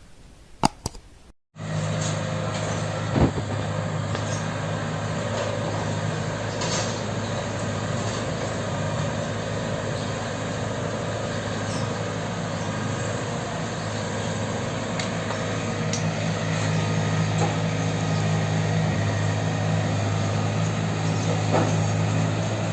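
Rice combine harvester running steadily with a constant low hum, starting about a second and a half in and growing a little louder in the last part.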